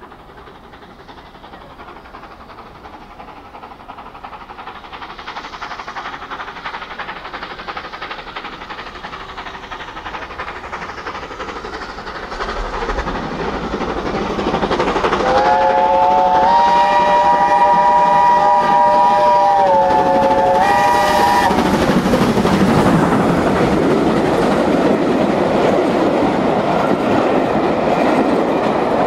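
BR Standard Class 7MT 4-6-2 steam locomotive no. 70000 'Britannia' approaching and growing steadily louder as it pounds along at speed. About halfway through it sounds its chime whistle in a long blast of about five seconds, followed by a short second blast. The locomotive and its coaches then rush past with the wheels clattering over the rail joints.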